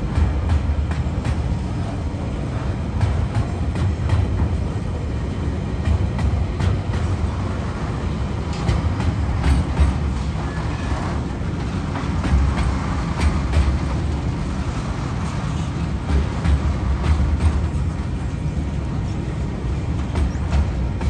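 Container wagons of a freight train rolling past: a steady low rumble with scattered clicks and knocks from the wheels on the rails.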